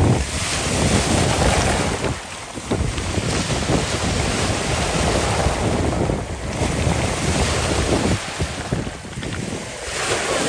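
Small lake waves washing in over a shore of small flat pebbles, the wash swelling and easing every couple of seconds as each wave comes in and draws back, with wind buffeting the microphone.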